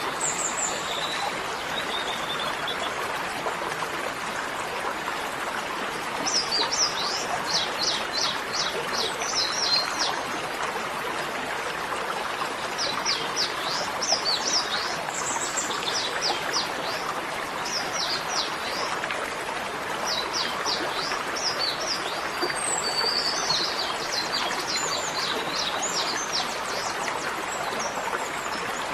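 Birds chirping in quick repeated series of short high notes over a steady rushing of running water.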